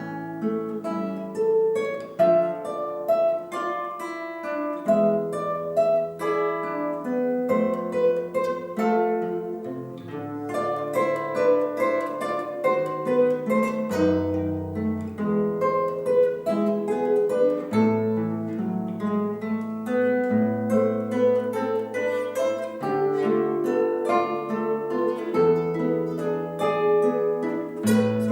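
Instrumental music on a plucked string instrument: a flowing melody of plucked notes over longer bass notes.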